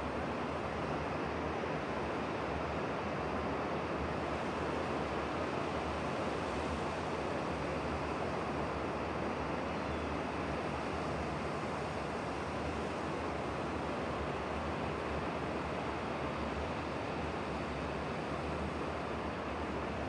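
Sea surf breaking at a distance, heard as a steady, unbroken wash with no single wave standing out.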